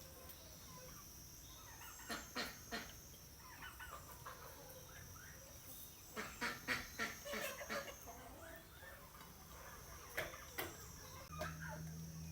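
Farmyard poultry clucking and calling, with short sharp calls coming in groups about two seconds in, around six to seven seconds in, and again near ten seconds.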